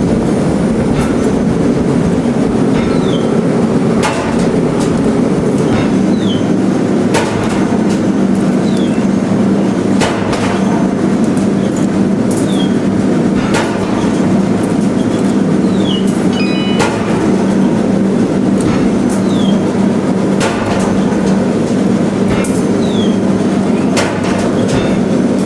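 Forge-shop machinery running with a steady loud drone, punctuated every two to three seconds by sharp metal blows of a forging hammer shaping stainless steel scissor blanks. It cuts off suddenly at the end.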